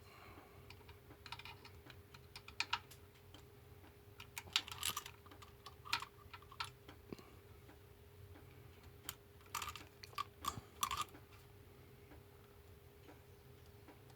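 Irregular light clicks and clinks of small metal parts and a screwdriver as a carburettor support bracket and screw are fitted on a chainsaw, coming in clusters, over a faint steady hum.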